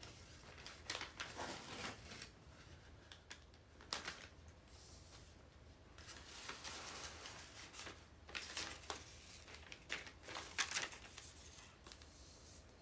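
Self-adhesive woodgrain vinyl leg wrap rustling and crinkling as it is pressed and smoothed by hand around a high chair leg, in faint, irregular short scrapes.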